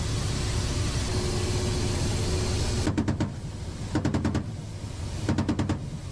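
A steady rushing noise for about the first three seconds, then a machine gun firing three short bursts of several rounds each, about a second apart.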